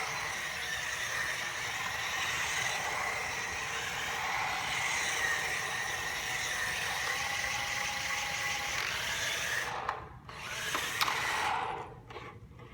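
Modified Roomba's 600 RPM planetary gear drive motors whining as it drives, the pitch wavering slightly with speed. The motors cut out briefly about ten seconds in, start again with a click, then stop near the end.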